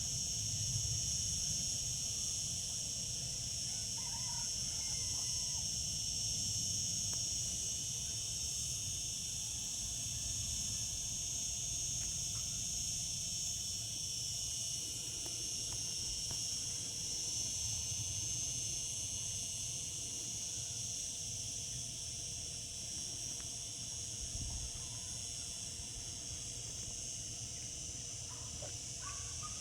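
Cicadas singing in a steady, continuous high-pitched drone, with a low rumble underneath.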